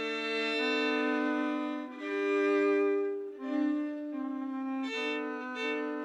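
Slow bowed-string music led by violin, playing long held notes with two lines sounding together. The notes change every second or two.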